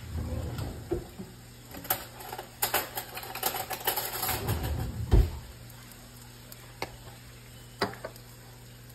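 A quick run of clicks and knocks for about five seconds, ending in a heavier thump, then a couple of single clicks.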